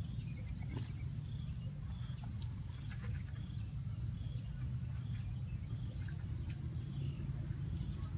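Faint short bird-like chirps, roughly one a second, over a steady low rumble, with a few light clicks.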